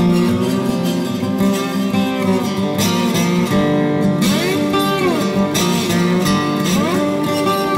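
Background music led by guitar, playing continuously, with a melody line whose notes slide up and down.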